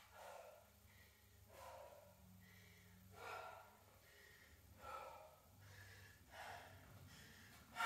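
A woman breathing hard and out of breath after strenuous cardio exercise. Faint, deep breaths come about one every one and a half seconds.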